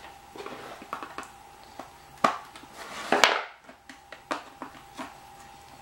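Hard plastic casing parts of a Back2Life machine clicking and knocking as they are handled and worked apart by hand, with louder knocks about two and three seconds in.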